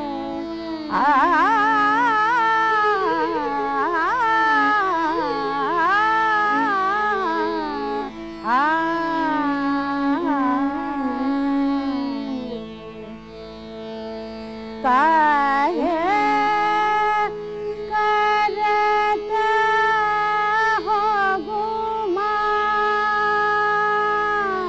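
A woman singing Hindustani classical vocal music in Raga Shankara over a steady tanpura drone. She holds long notes, bending between them with gliding ornaments. The voice drops back about 13 seconds in and comes in strongly again about two seconds later.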